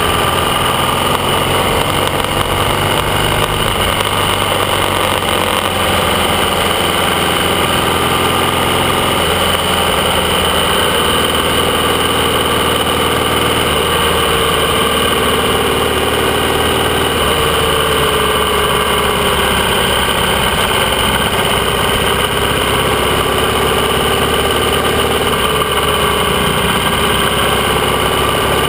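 AJS 650 CSR's 650 cc parallel-twin engine running while the motorcycle is ridden along, its pitch rising and falling gently with engine speed.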